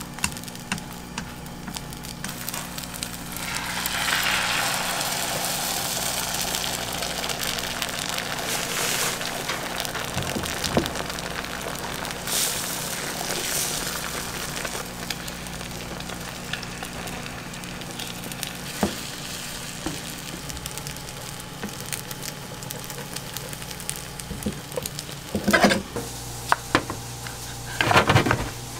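Beaten eggs sizzling in a square nonstick pan as they are stirred with chopsticks into scrambled egg, with scattered light clicks of the chopsticks against the pan and a steady low hum underneath. Two louder noises come near the end.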